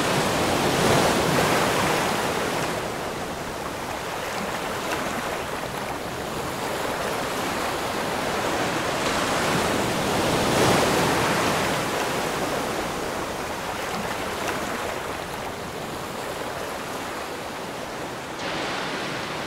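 Ocean surf breaking and washing on a pebble beach, a steady rush that swells about a second in and again near the middle.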